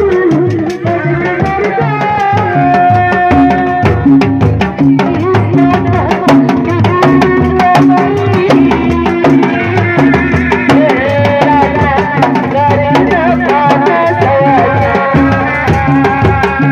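Reak procession music: Sundanese dogdog drums, single-headed drums struck by hand and with a stick, beating a steady, dense rhythm, with a wavering melody line above them.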